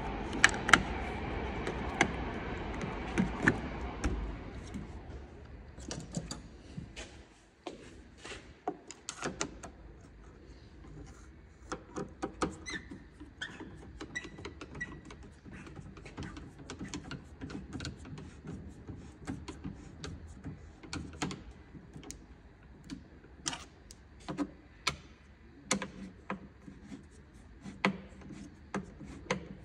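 Irregular small clicks, taps and knocks of hand tools and lock parts being handled and fitted inside a car door. A steady rumbling noise runs under the first few seconds, then fades out.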